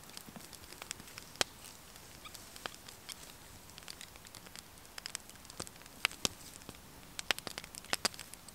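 Wood fire crackling in a small twig-burning camp stove: irregular sharp pops and snaps, a few clustered together about six and about eight seconds in.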